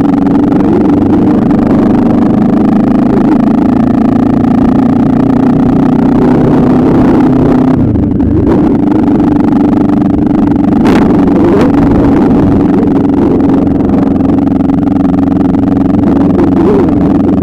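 Motorcycle engine running at steady revs, holding one constant pitch with a brief dip about eight seconds in.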